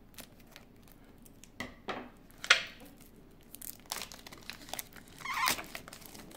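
Plastic shrink wrap being cut with scissors and peeled off a boxed card set by hand: scattered crinkles and crackles. There is one sharp crackle about two and a half seconds in and a longer rustle near the end.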